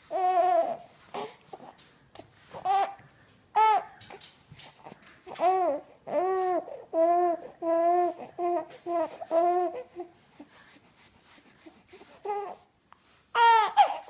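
Young baby cooing and babbling in short, high-pitched vowel sounds, with a quick run of about eight coos in the middle and a louder one near the end.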